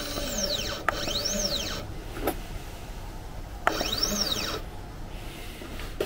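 Stepper motors of a Sainsmart Genmitsu 4040 Pro CNC router jogging an axis, with the spindle off. A steady whine slows and stops near the start, then come two short moves about three seconds apart, each whining up in pitch and back down as the motor speeds up and slows to a stop.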